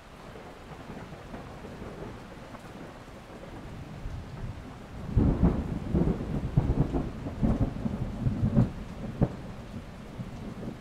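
Steady rain hiss, with a run of loud, irregular low rumbling thumps lasting about four seconds from about five seconds in.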